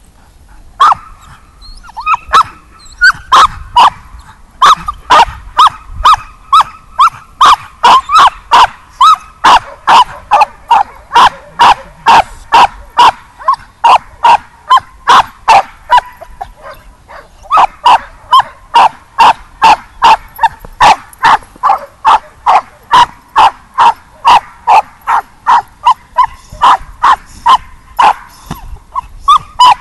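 A dog barking hard and fast, about two to three barks a second, with a short break just past the middle: a leashed dog barking at a decoy during protection (bite) training.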